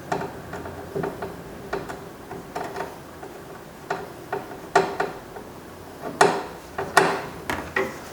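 Phillips screwdriver driving the screw back into a car's interior door handle: a string of irregular clicks and ticks, with a few louder knocks in the second half.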